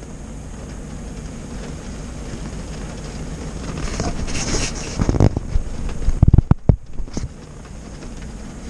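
Steady low rumble with wind noise on the microphone, inside a car with rain on the windshield, broken about five to seven seconds in by a run of heavy thumps and knocks.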